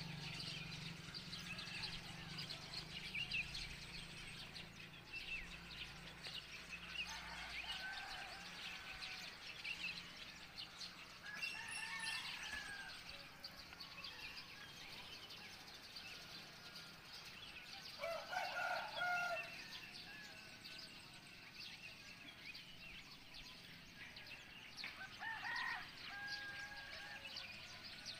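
Roosters crowing four times, each crow a second or so long, the loudest about two thirds of the way through, over steady chirping of small birds.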